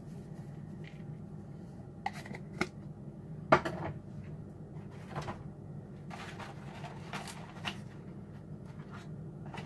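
A can of baking powder shaken and tapped over a plastic bowl of raw chicken pieces, giving a few short taps, with one sharper knock about three and a half seconds in. A further run of light scrapes and taps follows near the end, over a low steady hum.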